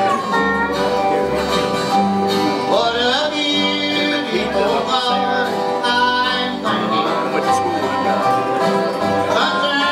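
Live bluegrass band playing: fiddle, dobro, mandolin, acoustic guitars, banjo and upright bass together, with sliding notes about three seconds in and again near the end.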